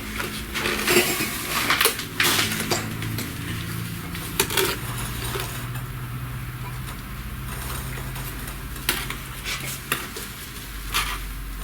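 Bricklaying work: a steel trowel and hand-moulded clinker bricks scraping and clinking against each other and the mortar in a few scattered sharp knocks and scrapes, busiest in the first few seconds, over a low steady hum.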